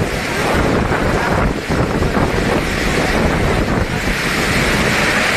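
Strong wind blowing hard across the microphone in a loud, continuous rush with heavy low rumble.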